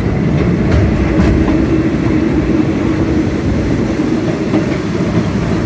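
Steady rumble and rattle of a Thai railway passenger carriage running on the rails, heard from inside the carriage with a steady low hum and a few faint clicks of the wheels.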